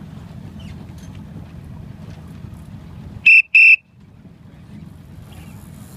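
A whistle blown twice in two short, loud blasts a fraction of a second apart, about three seconds in. Low wind rumble on the microphone otherwise.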